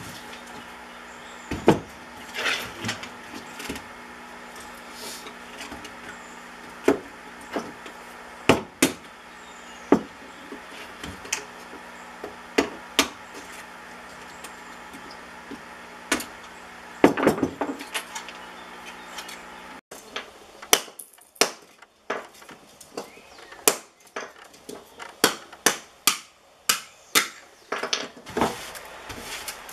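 Hand tools knocking and clinking on a plywood bench as copper windings are pulled off transformer coils, over a steady low hum. From about 20 seconds in, a quick run of sharp knocks on a concrete floor as a copper coil is worked with a hammer.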